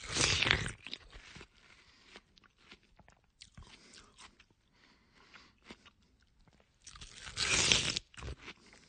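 A person biting into watermelon: two loud, crunchy, wet bites, one at the start and one about seven seconds in, with softer chewing in between.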